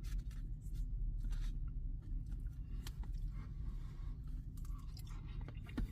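A person chewing a mouthful of egg white and red pepper egg bite: faint mouth sounds with small scattered clicks over a steady low hum.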